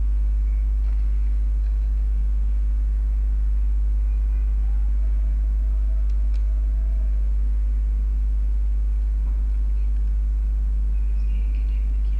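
A steady low hum with fainter, evenly spaced overtones above it, running at a constant level.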